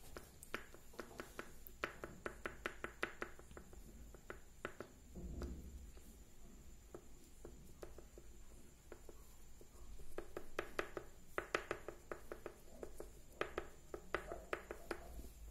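Oil pastel stick scratching on paper in quick short strokes, several a second, coming in runs with pauses between. A soft low thump about five seconds in.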